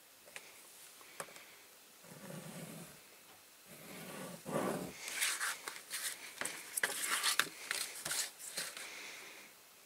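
Stiff printed card being marked and creased along its fold lines: a few small clicks, then soft rubbing and scraping, and from about halfway a busy run of short scratchy scrapes and taps.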